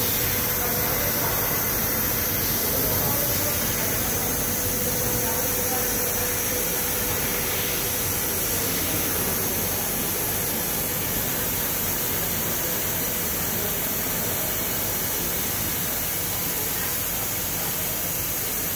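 TRUMPF TRUMATIC L 2530 laser cutting machine running with a steady hiss, strongest in the high end, and a faint steady hum tone through roughly the first half.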